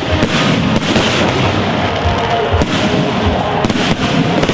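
Fireworks going off: an irregular run of sharp bangs and crackling, several a second, with music playing underneath.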